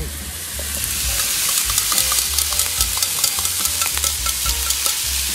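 Sliced beef sizzling in a steel frying pan on a portable gas stove as a miso-based sauce is poured in and stirred. The sizzle swells about a second in and then holds, with many small crackles and clicks over it.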